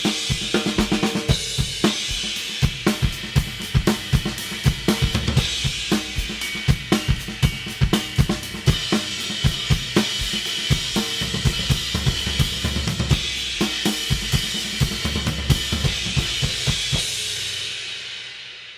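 Drum kit played with Istanbul Mehmet Nostalgia cymbals: a busy pattern of kick, snare and hi-hat strokes under a sustained cymbal wash. Near the end the drumming stops and the cymbals ring out and fade.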